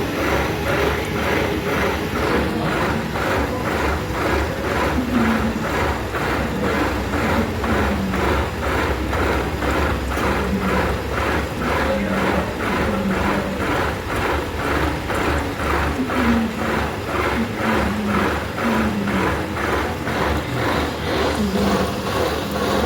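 Metal lathe running while machining a ship's steel starter gear, with a steady rhythmic ticking clatter of about three ticks a second.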